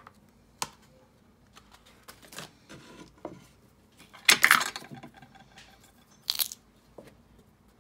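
Food-prep handling sounds on a kitchen counter: scattered light clicks and knocks. A loud, rough scraping noise comes a little after four seconds in and lasts about half a second, and a shorter sharp one follows after six seconds.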